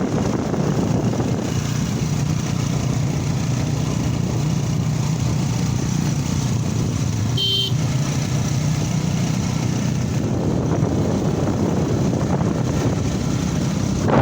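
A motor vehicle's engine running steadily while travelling at speed, with a short high-pitched tone about halfway through.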